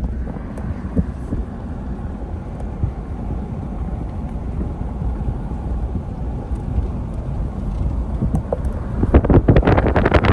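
Pickup truck driving slowly, a steady low rumble of engine and tyres. From about nine seconds in, rough crackling noise joins it.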